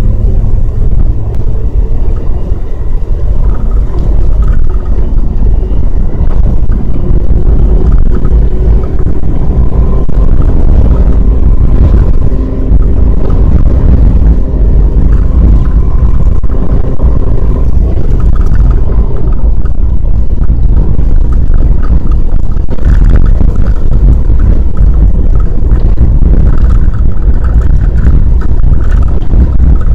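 Strong gale wind buffeting the microphone as a loud, steady low rumble, over a vehicle running on the road with faint engine tones beneath.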